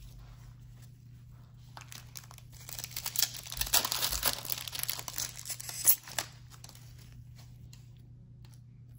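Foil wrapper of a trading-card pack crinkling and tearing as it is ripped open by hand. The crackle starts a couple of seconds in and lasts about three seconds, ending with a sharp snap.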